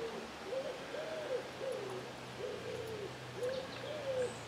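A dog whining: a steady string of short whines, nearly two a second, each rising and falling in pitch.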